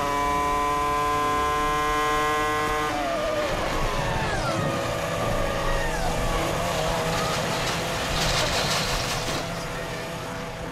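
Formula One race car's V10 engine held at high revs, then its pitch drops about three seconds in as the revs fall, followed by lower engine notes that glide and waver.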